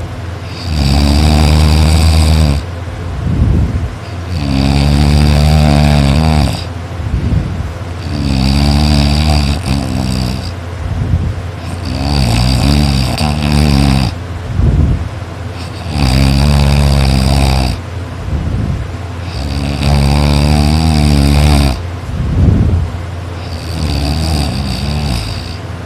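A person snoring very loud: a low-pitched snore of about two seconds on each breath, repeating roughly every four seconds, about seven times.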